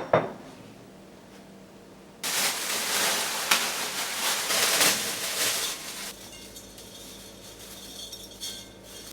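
Two sharp clinks of dishware, then a loud rushing noise that starts abruptly about two seconds in and cuts off about four seconds later, leaving faint clatter.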